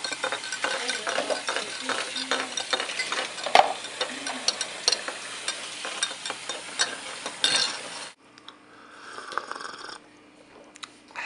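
Dense, rapid clicking, scraping and rattling of kitchen objects being handled on a counter, with one louder knock a few seconds in. It cuts off abruptly about eight seconds in, leaving only faint, scattered sounds.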